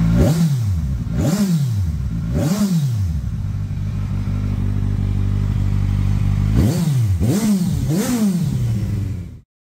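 Kawasaki Z1000SX's inline-four engine breathing through a Black Widow GP round carbon slip-on silencer: idling, blipped three times in quick succession, idling again, then blipped three more times. The sound cuts off suddenly near the end.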